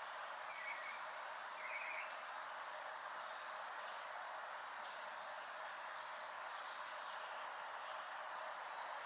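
Small birds chirping over a steady even hiss: two short chirp trills in the first two seconds, then a run of thin, high-pitched chirps repeating about every half second.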